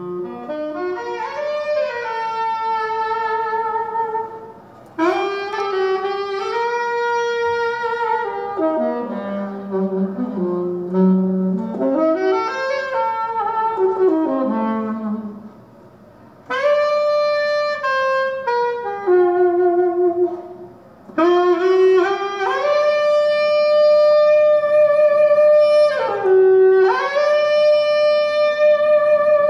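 Recorded jazz saxophone playing a slow, single-line melody in phrases separated by short pauses, ending on long held notes, reproduced through a pair of DALI Zensor 3 bookshelf speakers driven by a Pioneer amplifier.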